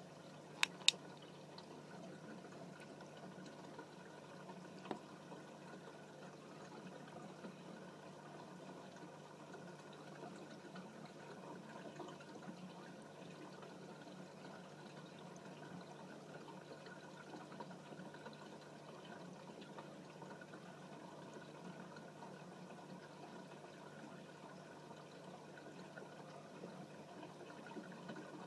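Faint steady running water of an aquarium over a low hum. There are two sharp clicks within the first second and another about five seconds in.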